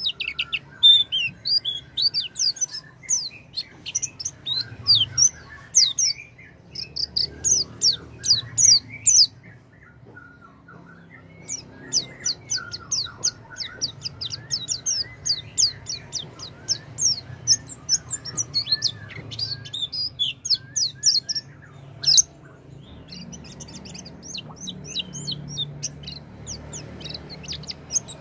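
White-eye (pleci) singing: long runs of quick, high, falling chirps at about four or five a second, with brief pauses about ten seconds in and again near the end.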